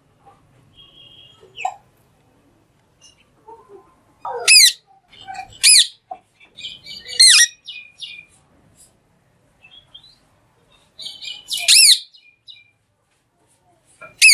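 A green parrot giving short, loud, high-pitched screeching calls, about four of them a second or more apart, with softer chattering notes in between.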